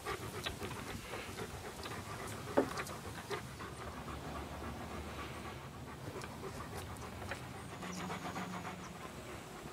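A dog panting, with scattered small clicks and one sharp knock about two and a half seconds in.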